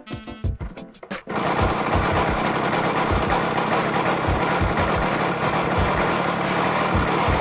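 Music for about the first second, then a small nitro glow engine of an RC model airplane cuts in and runs steadily at high speed.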